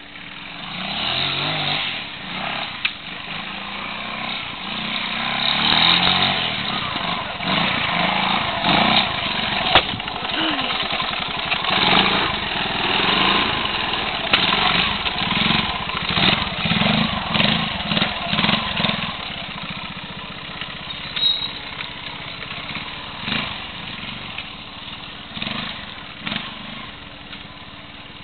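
Classic trials motorcycle engine being ridden through a section, revving up and down in short throttle bursts, louder in the middle and fading in the last several seconds.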